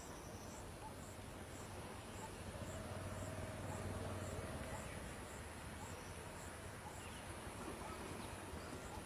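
Faint insects: a steady high trill with a short chirp repeating about twice a second, over a low hum that swells for a couple of seconds in the middle.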